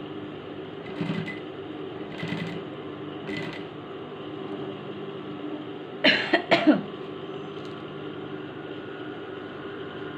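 Industrial sewing machine humming steadily, with short bursts of stitching about one, two and three and a half seconds in. A louder double sound with a falling pitch comes a little past halfway.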